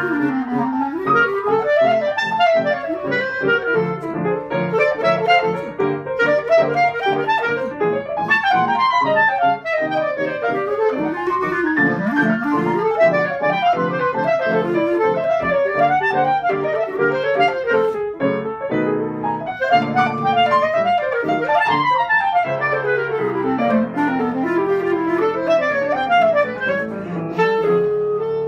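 Clarinet and piano playing jazz as a duo: the clarinet carries a quick, winding melody line over the piano's chords.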